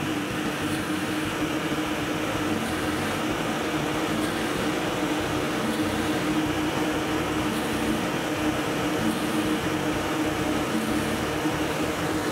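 Drill press running a straight cutter bit that mills a slot in an MDF table-saw insert as the board is pushed along under it; a steady machine hum with cutting noise.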